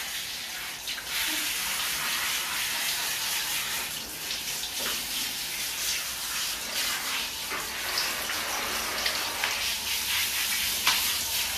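Handheld shower head spraying water onto a wet dog's coat and a tiled shower floor: a steady hiss of running water with small irregular splashes.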